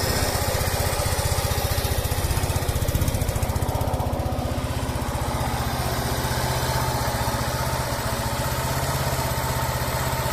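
Yamaha SR125's single-cylinder four-stroke engine idling steadily with an even beat: a low-mileage replacement engine running normally, without the knock of the worn original.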